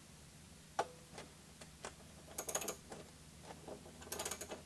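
Small socket wrench loosening the bolt on a record changer's tone-arm mount: a few separate clicks, then two quick runs of rapid ratchet clicks, about a second and a half apart.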